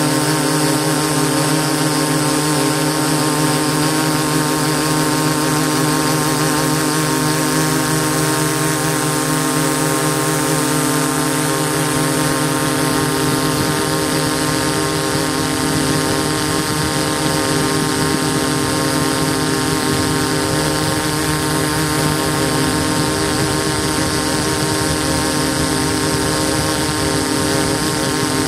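DJI S800 hexacopter's six electric motors and propellers running steadily in flight, heard close up from on board as a constant whine of several steady tones over a hiss. From about halfway through, the low rumble underneath turns rougher and more uneven.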